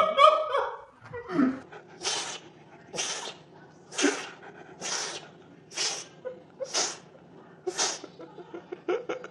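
Grey-and-white kitten sneezing again and again, seven short sneezes at about one a second.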